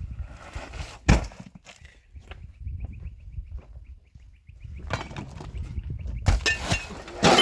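A few sharp knocks or impacts, the loudest just before the end, over a low rumble. A faint, evenly repeated high chirping runs through the first half.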